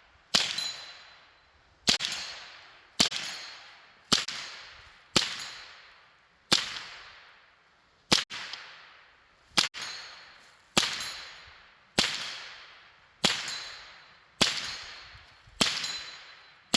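AR-15 rifle fitted with a CMMG kit firing about fourteen single shots at a steady pace of roughly one a second, each a sharp crack whose echo dies away before the next.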